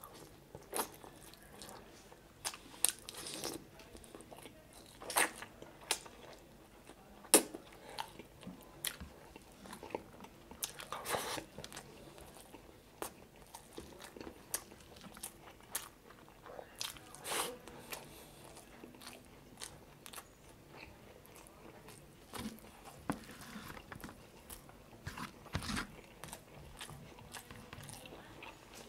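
Close-miked eating of chicken adobo and rice by hand: biting into the chicken and chewing, irregular sharp bite and mouth sounds, a few of them loud.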